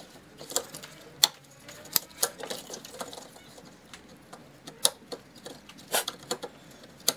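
Plastic wiring-harness electrical connectors being handled and pushed into their sockets: a series of scattered sharp clicks and light rattles, the sharpest about a second in.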